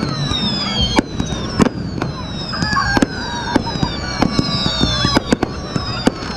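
Aerial fireworks going off in quick succession: sharp bangs and crackles, overlapping with many shrill whistles that fall in pitch.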